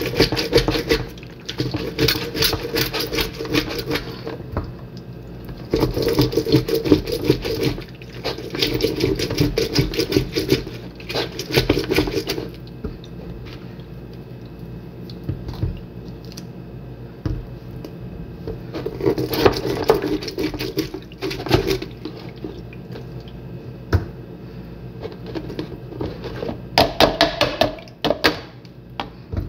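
Orange halves twisted and pressed by hand on a plastic citrus reamer, heard as several bursts of rapid rasping a few seconds long with pauses between. Near the end, a short plastic clatter as the reamer top is lifted off its bowl.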